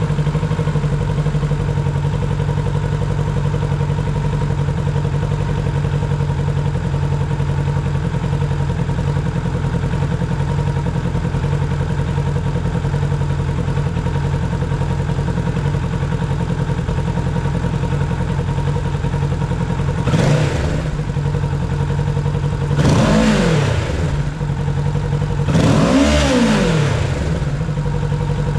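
A Kawasaki Ninja 650's parallel-twin engine idling steadily through its exhaust, then blipped three times near the end, each a quick rise and fall in pitch, the last two the loudest.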